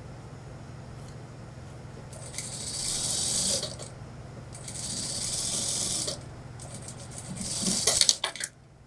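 An industrial lockstitch sewing machine stitches through trouser fabric in three short runs, the first two each about a second and a half long and the last about one second. A few sharp clicks come as the last run stops near the end. A steady low hum runs underneath.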